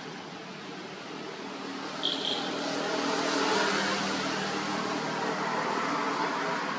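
A steady low motor hum, with a wider rushing noise that swells from about two seconds in, like a motor vehicle passing. A brief high chirp sounds as the swell begins.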